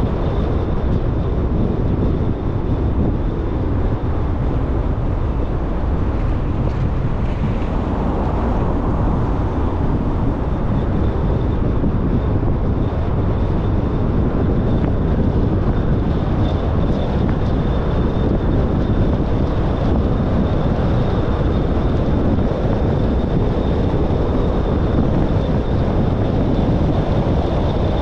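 Car driving: a steady rumble of road, tyre and engine noise, with a faint, steady high-pitched whine over it.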